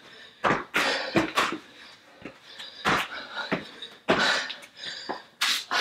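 Hard, sharp breaths and gasps from a woman doing burpees, with thuds of her feet and hands landing on a rubber floor mat. The sounds come irregularly, about one every half second to a second.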